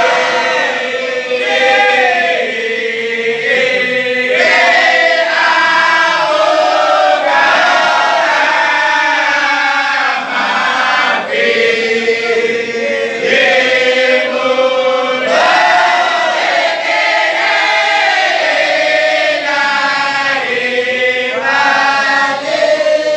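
A chorus of men and boys chanting a Sufi wadifa together, in long sung phrases that rise and fall.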